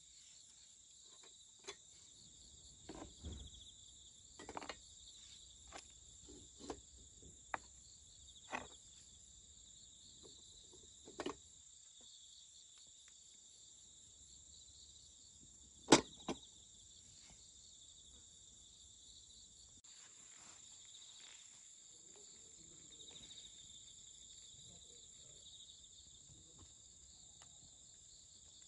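Crickets trilling steadily in the grass. Over them come a string of sharp clicks and knocks from twigs and metal being handled at a small folding wood stove, the loudest a single sharp knock about halfway through.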